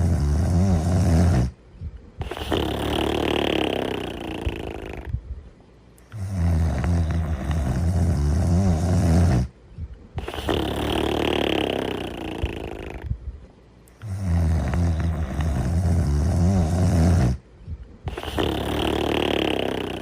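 Snoring in long slow breaths, about one every eight seconds. Each one is a loud, low, rattling snore of about three seconds, then a short pause and a softer, hissing breath of about the same length.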